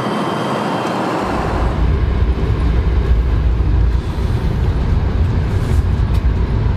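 Airbus A380 cabin noise heard from inside: a rushing hiss, then a heavy low rumble that comes in about a second in and holds steady as the airliner rolls along the runway.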